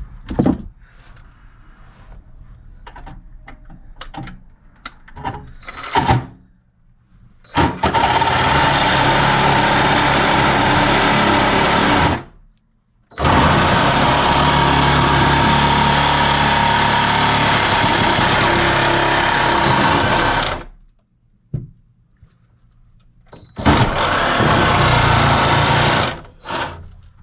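A power tool cutting through a metal nail plate in a wall, run in three steady bursts of about five, seven and three seconds with short stops between. Scattered knocks and taps come before the first burst.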